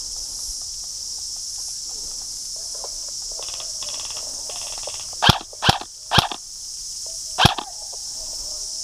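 Steady high-pitched chirring of insects. Four sharp, loud reports cut through it about five to seven and a half seconds in: three in quick succession, then one more a second later.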